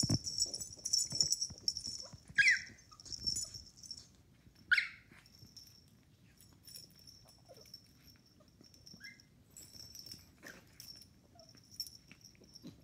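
A puppy's high yips during rough play with a cat: two short, sharp falling yelps about two and a half and five seconds in, then a few fainter squeaks.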